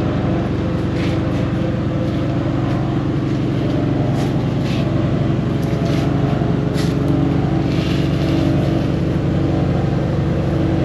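An engine running steadily at constant speed, with a few brief crackles on top.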